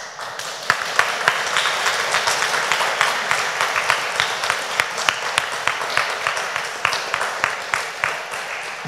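Audience applauding, many hands clapping irregularly; the clapping builds over the first second and tails off near the end.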